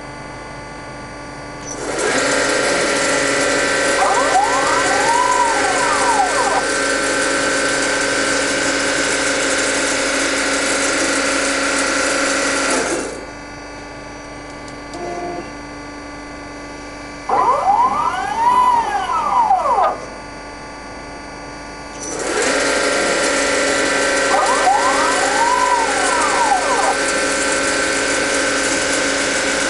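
MEP Shark 332 automatic bandsaw cycling through its automatic mode. A steady machine hum made of several tones comes on about two seconds in, stops about thirteen seconds in, and comes back about twenty-two seconds in. In the quieter gap a drive whine rises and falls over a couple of seconds as the shuttle vice speeds up and slows down.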